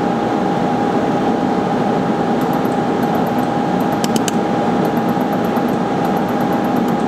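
Orion LZR 100 benchtop laser welder running with a steady fan-like rush and hum. Several short trains of faint, rapid ticks, about nine a second, mark the laser pulsing on a white gold ring to melt out casting porosity, and a brief cluster of sharp clicks comes about four seconds in.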